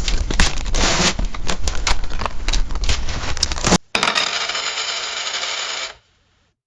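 Coins jingling and clinking in a dense, irregular run of metallic clicks that cuts off just under four seconds in. It is followed by a steadier, fainter rustling noise lasting about two seconds.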